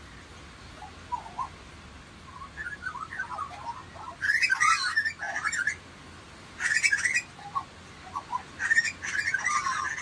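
Lorikeets calling: light chirps at first, then three bursts of harsh, screechy calls from about four seconds in, near seven seconds, and near the end.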